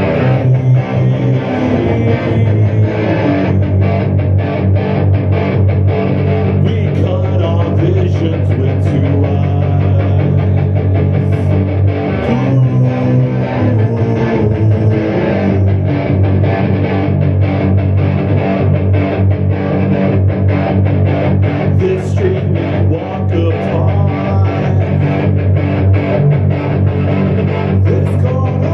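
Loud rock music with no singing: guitar and bass guitar playing an instrumental passage over a steady beat.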